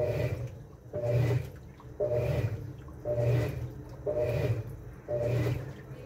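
Top-loading washing machine's central agitator twisting back and forth during the wash cycle, about one stroke a second. Each stroke brings a low motor whir and water sloshing through the load of clothes.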